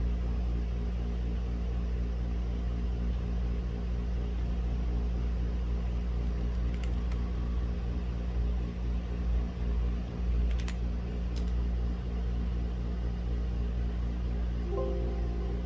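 Steady low hum of room and neighbourhood background, with a few isolated keystrokes on a mechanical keyboard with linear red switches around the middle, and a short faint tone near the end.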